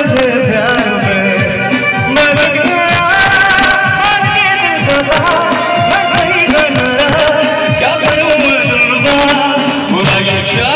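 Live Bollywood-style song: a man singing into a microphone over electronic keyboard and steady hand percussion, amplified through a PA system.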